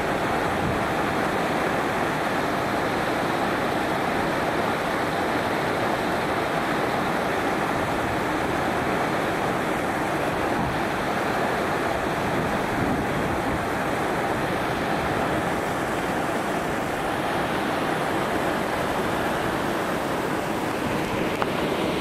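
Waterfall: a steady, unbroken rush of water falling down a tall rock face.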